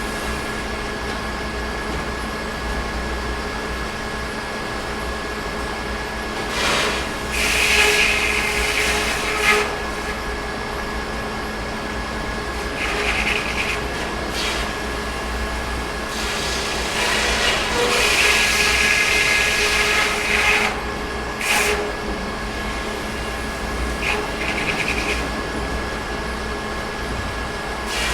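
Sawmill machinery running with a steady hum, broken by several louder bursts of noise lasting one to four seconds.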